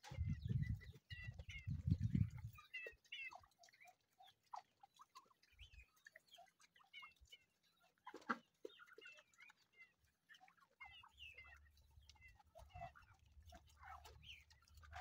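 A pig eating from a bowl, with low chewing and slurping in the first couple of seconds. After that come faint, scattered short chirps and clucks of chickens and other fowl around it.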